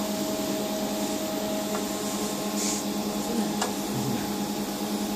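A 500 W, 220 V AC telecom cabinet air conditioner running steadily just after start-up, compressor and fan both on, with an even hum and a couple of faint ticks.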